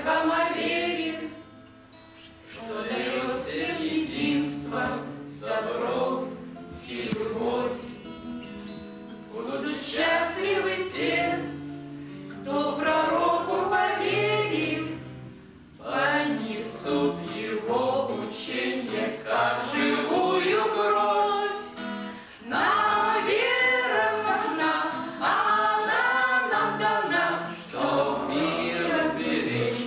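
Three women singing a song together in harmony, accompanied by a strummed acoustic guitar, in phrases separated by short breaths.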